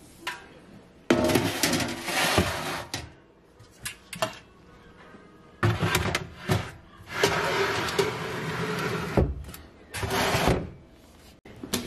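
Stainless steel pans and a pasta machine being slid and set down on a cupboard shelf: several bursts of metal scraping with a few knocks.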